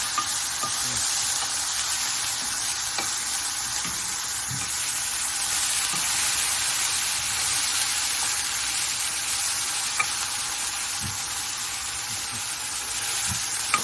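Sliced chicken thigh sizzling steadily in a hot frying pan, finishing on the pan's retained heat with the burner off, with a few light clicks now and then.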